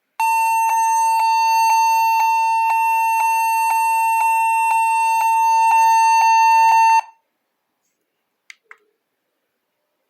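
Laptop speakers blaring one loud, steady, beep-like tone with a regular click about twice a second, the sound of a crashed laptop's audio stuck on a loop. It cuts off abruptly after about seven seconds, and two faint clicks follow.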